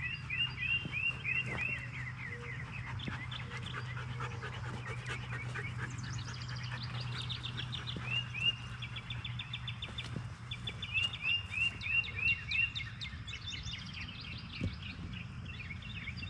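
Songbirds singing: several runs of quick repeated chirps, about four or five a second, with finer trills between them, over a steady low hum.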